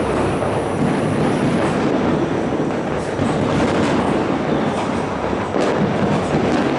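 Dense New Year's fireworks barrage: many bursts and crackles merging into one continuous rumble, with a few sharper cracks standing out.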